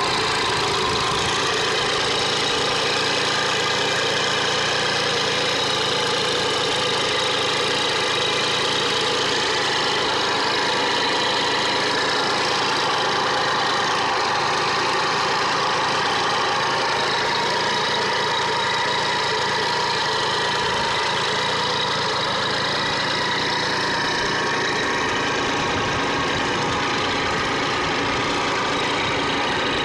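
1965 Famel Foguete moped's small two-stroke engine idling steadily.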